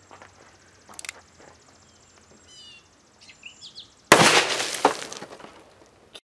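A single shot from a Smith & Wesson Governor revolver firing a Federal Premium .410 000 buckshot shell, about four seconds in, its noise dying away over about two seconds. Faint bird chirps are heard before it.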